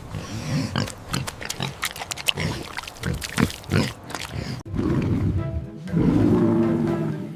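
Pig grunting and oinking: a quick run of short grunts, then a longer, steadier stretch from about two-thirds of the way in, over background music.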